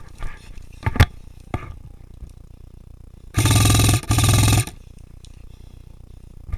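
Airsoft rifle firing two short full-auto bursts, each a rasping buzz about half a second long, close to the microphone, after a couple of single sharp clicks.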